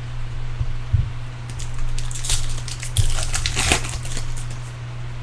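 Wrapper of a baseball card pack being torn open and crinkled, a run of crackling rustle from about a second and a half in until near the end, loudest around the middle.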